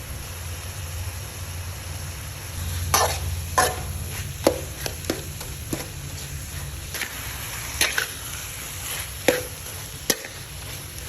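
Metal spatula clacking and scraping against a wok during a stir-fry, about a dozen sharp knocks at uneven intervals over a steady low hum.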